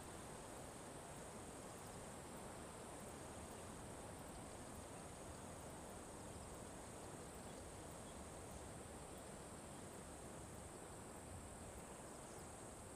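Faint grassland ambience: a steady high-pitched insect drone over a low, even background hiss.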